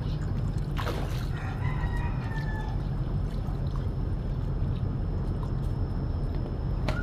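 A rooster crowing once, about a second and a half in, over a steady low rumble.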